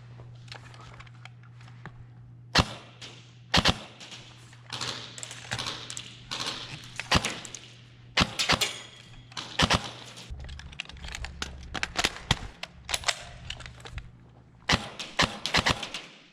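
Airsoft guns firing irregular single shots and short quick strings, sharp cracks with some reverberation, over a steady low hum.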